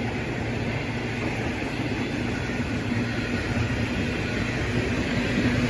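Freight train of grain hopper wagons rolling past, a steady rumble of wheels on rail that grows slightly louder near the end.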